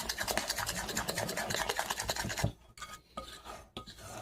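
Thick cornbread batter being beaten fast with a utensil in a mixing bowl: rapid, even scraping strokes. From about two and a half seconds in, the beating gives way to quieter, slower scrapes and taps of the utensil against the bowl.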